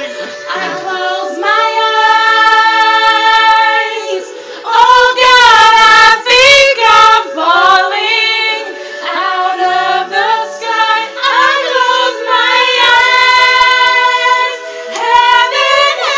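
Music with high singing voices holding several long notes over a steady backing chord.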